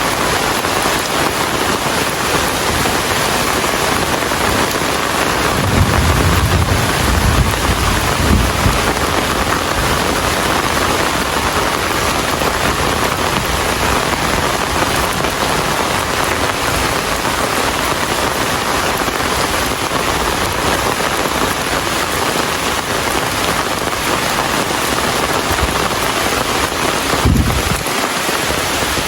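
Steady rain falling on surfaces, a dense even hiss with fine patter. A low rumble rises under it about six seconds in for a couple of seconds, and briefly again near the end.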